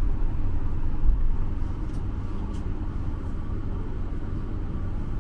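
Steady low rumble and hum of a running vehicle engine.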